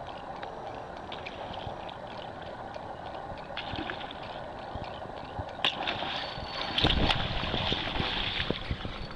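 Striped bass striking at a topwater plug on the surface: a small splash about three and a half seconds in, then a much bigger, louder splash about seven seconds in as the fish hits the lure.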